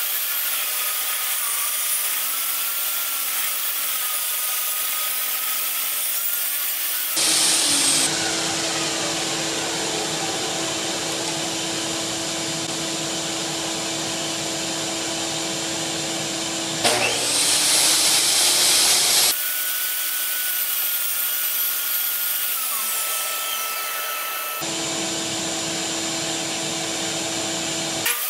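Table saw running steadily with a motor whine while wood is fed through the blade along the fence. There are louder, harsher stretches about seven seconds in and again around seventeen to nineteen seconds in.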